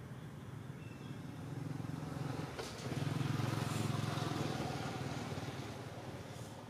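A motor vehicle passing by, its engine rumble growing louder to a peak about three seconds in and then fading away.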